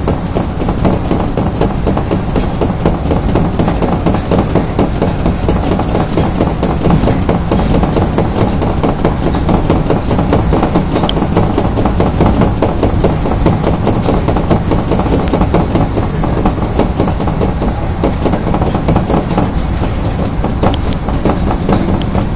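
Osaka subway Tanimachi Line 22 series train running in a tunnel between stations, heard from inside the leading car: a steady rumble of wheels and running gear with a rapid scatter of clicks from the rails.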